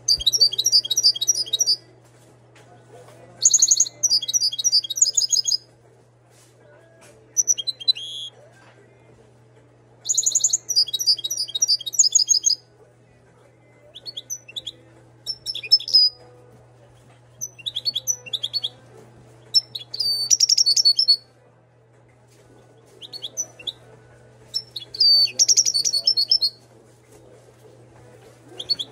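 Caged Moroccan European goldfinch singing: bursts of fast, liquid twittering song a second or two long, with short pauses between, breaking up into shorter phrases and single chirps in the second half.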